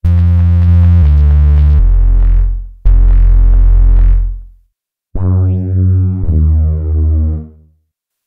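Deep sub bass synthesizer notes from the Dark Ambient bank's sub bass presets in Arturia Analog Lab V, built on its Jup-8 V (Jupiter-8) emulation. They are played in three short held phrases with brief gaps, changing pitch a few times, and the last phrase pulses.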